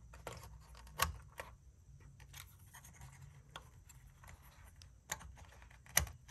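Wire-harness connectors being pushed onto circuit-board headers by hand inside a tube-amplifier chassis: faint scratching and handling with a few sharp clicks, the loudest about a second in and just before the end.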